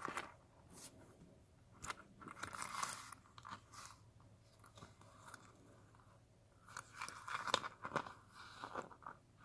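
Hands handling a small coated-canvas key pouch: rustling and small clicks in two bursts, about two and seven seconds in.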